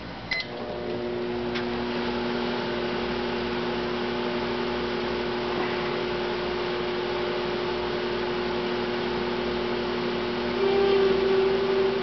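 Sharp Carousel microwave oven: a short keypad beep as its button is pressed, then the oven starts up and runs with a steady electrical hum, which grows louder for the last second or so.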